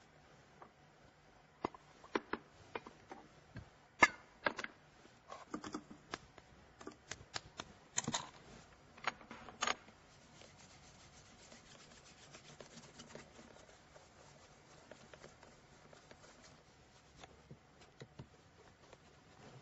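Polishing cloth rubbing over a leather shoe, heard as a faint, even rubbing through the second half. Through the first half, a string of sharp clicks and taps, the loudest about four seconds in.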